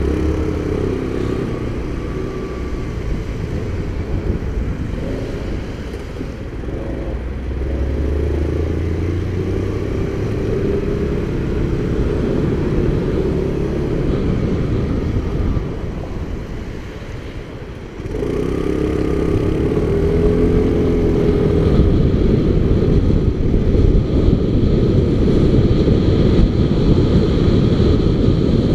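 Motorcycle engine under way, its pitch rising as it accelerates through the gears twice, easing off briefly and then pulling hard again from about two-thirds of the way through. Wind rush over the microphone builds as the speed picks up near the end.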